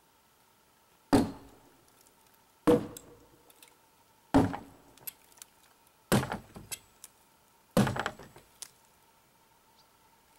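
Five heavy thuds at an even pace, about one every second and a half, each trailed by a few lighter knocks and rattles: a tool striking wood.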